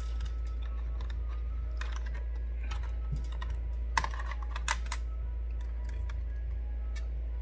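Small screwdriver tip clicking and scraping on a chassis screw of an opened HP 15t laptop, a run of light clicks with two sharper ones about four seconds in. The screw is not cooperating. A steady low hum lies underneath.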